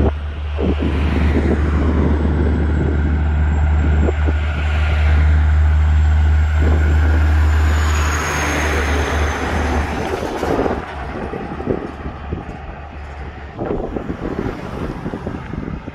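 A Kenworth road train with tipper trailers driving past: diesel engine and tyre noise swell as it passes about halfway through, with a faint high whine falling in pitch, then fade as it pulls away. Wind rumble on the microphone runs underneath.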